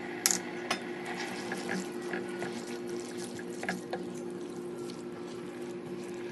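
Water running from a kitchen tap, with a few sharp clinks, over a steady low hum.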